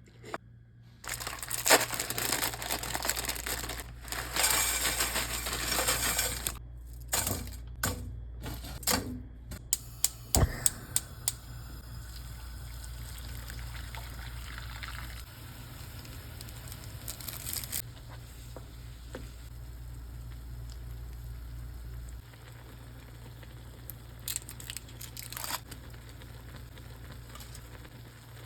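Kitchen handling sounds: plastic food packaging crinkling and tearing for several seconds, then a run of sharp clicks and knocks, settling into a quieter steady hiss with a low hum and a few more clicks near the end.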